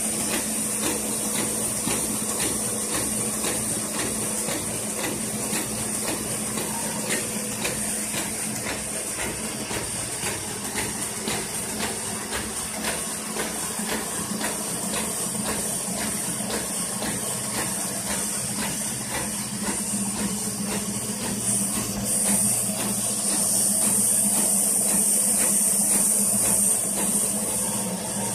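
Autoprint small sheet-fed offset printing press running: a steady mechanical hum with a regular clatter from its sheet-feeding mechanism, over a constant air hiss. The hiss grows louder for a few seconds about three quarters of the way through.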